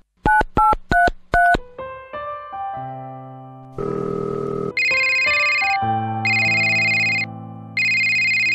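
Four quick two-tone keypad beeps from a mobile phone being dialled, then soft electric piano music. About four seconds in comes a short buzz, and after it a phone ringtone rings in three even pulses of about a second each over the piano.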